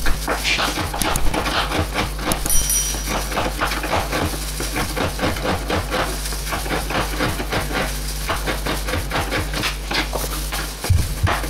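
Kitchen knife chopping and shaving a block of palm sugar on a plastic cutting board: a quick, uneven run of chops and taps, a few a second.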